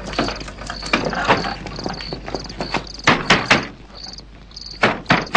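Knocking with a fist on an old wooden plank door: scattered knocks early on, then a quick run of three about three seconds in and two more near the end. Crickets chirp steadily in the background.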